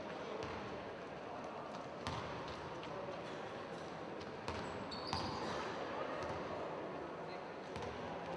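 Murmur of voices in a sports hall during a stoppage in play, with scattered sharp knocks, like a ball bouncing on the court floor, and a brief high squeak about five seconds in.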